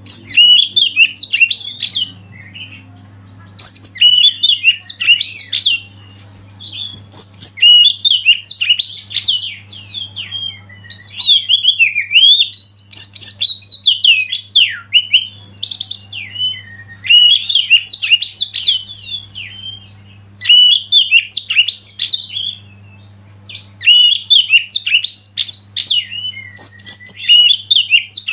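A songbird singing rapid, varied whistled phrases in bursts of a few seconds, with short pauses between them, over a faint steady low hum.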